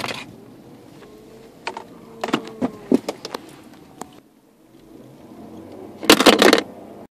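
A loose iPhone knocking and clattering against the hard plastic centre console of a car: scattered clicks and knocks, then a denser, louder rattle about six seconds in. The phone is not held in place and slides around as the car moves.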